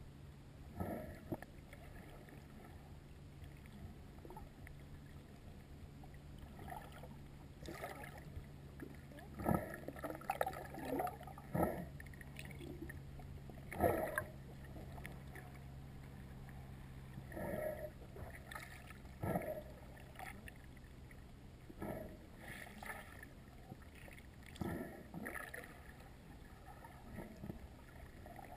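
Muffled sound of a camera held just under the sea surface: irregular swishes and splashes from snorkelers' fin kicks and bubbles, several a few seconds apart, over a steady low hum that fades out about three quarters of the way through.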